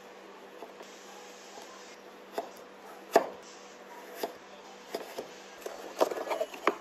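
Kitchen knife slicing through an avocado half, each stroke ending in a sharp knock on the wooden cutting board, the loudest about three seconds in. Near the end a cardboard egg carton is handled, giving a quick cluster of taps and rustles.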